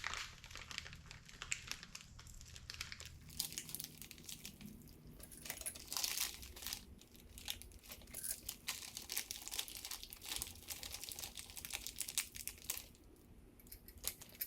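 Plastic packaging of new ARP main studs crinkling and rustling irregularly as it is handled and opened.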